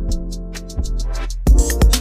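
Electronic house music: a sustained synth bass and chords with light hi-hat ticks, then a heavier drum-machine beat with a deep kick comes in about one and a half seconds in.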